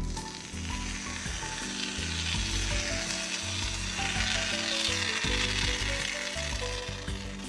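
Expanding polyurethane foam hissing steadily out of a can-mounted foam dispensing gun as it is laid down, over quiet background music.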